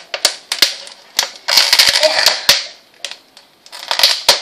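Plastic label being torn and peeled off a plastic water bottle: sharp crackles and clicks, with two longer bursts of crinkling about one and a half seconds and four seconds in.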